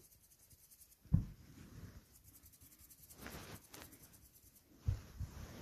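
Quiet scratchy rubbing and rustling, with two dull low thumps: one about a second in and one near the end.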